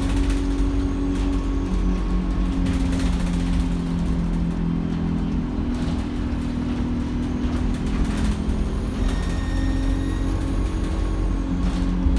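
Diesel bus engine running steadily, its pitch shifting a little, with the turbocharger's thin high whistle standing out between about 8 and 11 seconds in.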